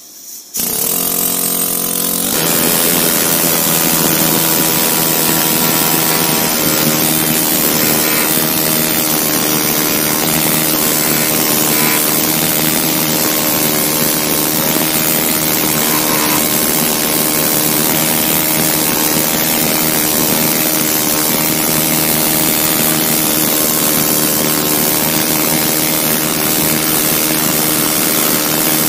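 Pneumatic air scraper running against the engine block's oil pan rail, scraping off a decades-old cork oil pan gasket. It starts about half a second in, gets louder about two seconds in, then runs steadily.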